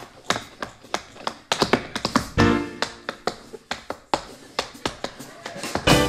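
Tap shoes striking a stage floor in fast, uneven rhythms of sharp clicks, with louder accented hits about two and a half seconds in and near the end. A live jazz trio of drums, upright bass and keyboard plays along.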